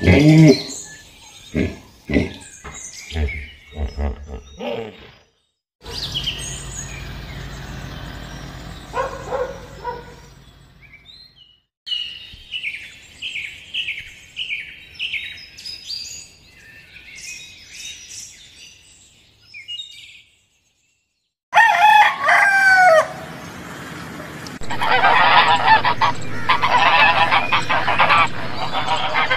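A run of short, high, evenly repeated chirps from featherless nestlings in a nest. After a brief gap and a short burst of loud calls, a flock of white domestic geese honks continuously.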